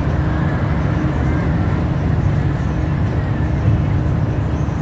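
Scania single-deck bus running at a steady cruise, heard from inside the passenger saloon: a constant low engine and road rumble with no change in pitch or level.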